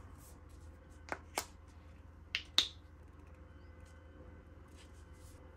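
Plastic flip-top cap of a Palmer's massage cream tube being snapped open: four sharp clicks in two quick pairs about a second apart, the last the loudest, over a faint room hum.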